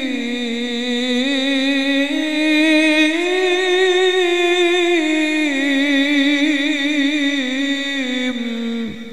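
Solo male voice chanting Quran recitation in the melodic tilawah style, unaccompanied: one long melismatic held passage whose pitch sways up and down with a quick wavering, fading out near the end.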